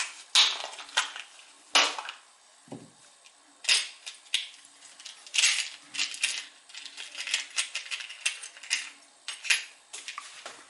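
Small metal lighter parts and hand tools being handled and set down on a workbench: irregular clicks and light clatters, some in quick clusters, with short pauses between.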